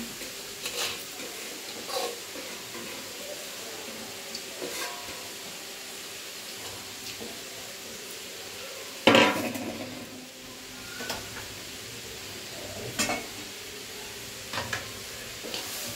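Grated carrot sizzling in ghee in an aluminium kadai, a steady hiss, with scattered knocks of metal utensils against the pan and one loud clatter about nine seconds in.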